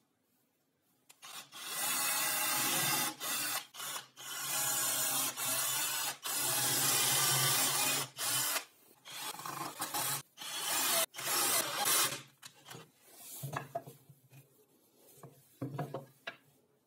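Cordless drill boring holes into plywood, the bit cutting through the wood in several runs of one to a few seconds with short pauses between, then a few shorter bursts near the end.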